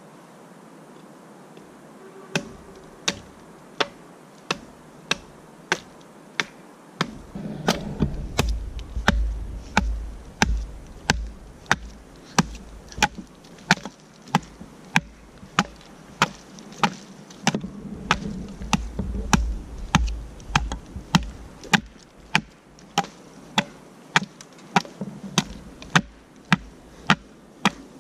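Small axe chopping a wedge point into the end of a green stick resting on a log: a steady run of sharp strikes on wood, starting about two seconds in and coming roughly twice a second.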